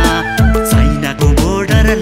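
Nepali pop song: a male voice singing over a steady beat, with a deep kick drum about twice a second and held synth tones.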